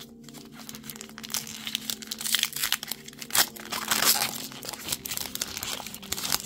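Foil wrapper of a Pokémon trading card booster pack crinkling as it is handled and torn open, a dense run of crackles loudest in the middle.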